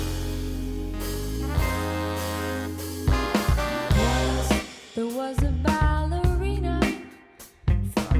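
Soul band recording on a mix bus, run through a Sound Skulptor EQ250 equaliser while its bands are swept. A sustained chord over heavy bass gives way about three seconds in to a woman's singing with drums. The music drops away briefly near the end.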